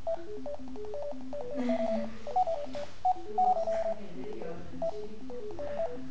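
Physioscan bioresonance scanner software sending out a rapid run of short electronic beeps that hop between pitches, several a second, as it scans; a steady low hum runs underneath.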